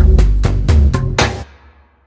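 Background music with a steady beat that fades out about three-quarters of the way through, leaving a short quiet gap.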